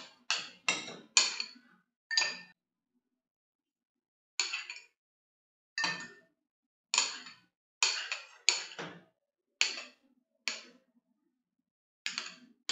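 Metal spoon clinking against a glass bowl and a glass of water while wet dough is smoothed with it. About a dozen separate, short clinks come at irregular intervals, with a pause of about two seconds a little way in.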